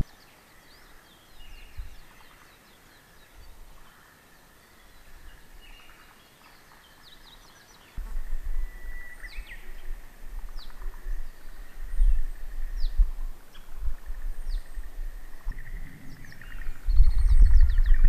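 Wild songbirds calling and singing: short, quick, high chirps and whistles scattered throughout over a thin, steady high note. A low rumble comes in about halfway through and grows loud near the end.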